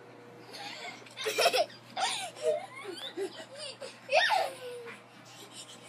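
A young child laughing in short, high-pitched bursts, loudest about a second and a half in and again just past four seconds.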